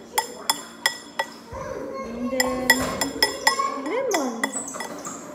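A metal utensil clinking repeatedly against a dish, a quick irregular run of sharp ringing clinks, several a second.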